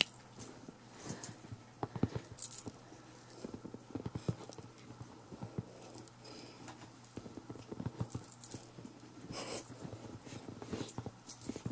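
Faint scattered rustles and soft taps on bedding, from a Pomeranian puppy moving about on a quilted blanket and a hand patting the fabric.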